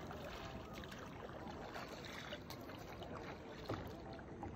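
Faint, steady water lapping and trickling around a kayak on a flowing river.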